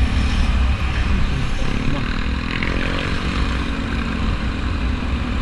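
Wind rush and road rumble on a motorcycle-mounted action camera while riding in traffic, with an engine note rising and falling about two seconds in.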